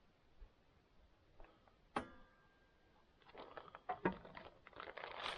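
Handling noise from a pouch of two-part post-setting foam being poured: a sharp click with a short ring about two seconds in, then dense crackling and rustling from about three seconds in.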